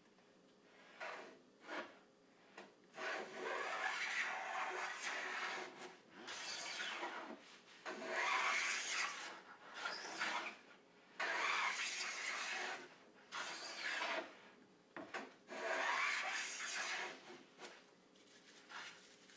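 Lie-Nielsen No. 7 jointer plane taking shavings off the edge of a padauk board: a series of about eight shearing strokes, each one to three seconds long, with short pauses between.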